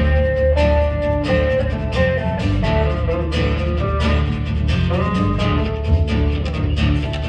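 Live contra dance band playing a tune: a bowed string melody of held notes over strummed guitar and a steady bass.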